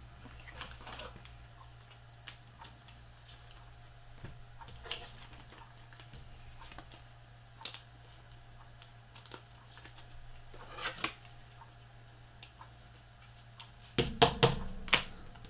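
Trading cards being handled on a table: scattered soft clicks and rustles as cards are slid, flipped and sorted, over a steady low hum, with a louder flurry of handling near the end.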